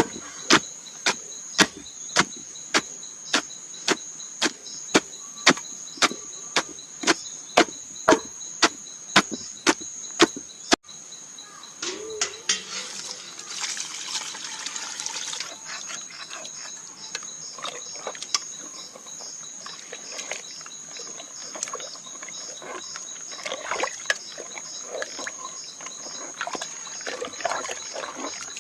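Soaked majo palm fruits being stomped in a pot, a steady run of thumps about two and a half a second that stops suddenly. Then a few seconds of water pouring in, followed by wet sloshing and squishing of the mashed pulp. A steady high insect buzz goes on throughout.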